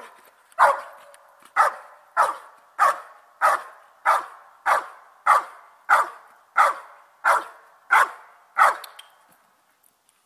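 German shepherd barking steadily and rhythmically, about thirteen barks at roughly one every 0.6 seconds, stopping about a second before the end. This is the bark-and-hold at the hiding blind: the dog stays in front of the concealed helper and barks at him.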